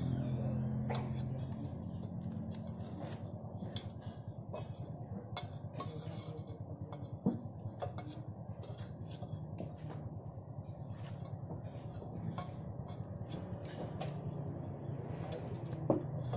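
Metal rod and pliers clinking and scraping against the inside of a steel motorcycle silencer as fibreglass packing is pushed in: a string of irregular small knocks and scrapes, with a low steady hum underneath.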